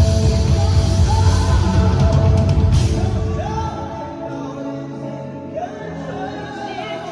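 Gospel band with a singer in a large hall: drums and bass play heavily for about the first three seconds, then the band drops down to softer held chords under the sung melody.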